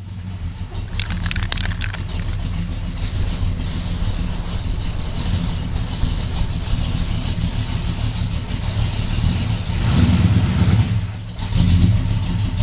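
The 1968 Chevrolet El Camino's engine is running at a steady, lumpy idle heard at the exhaust. It revs up about ten seconds in and again near the end.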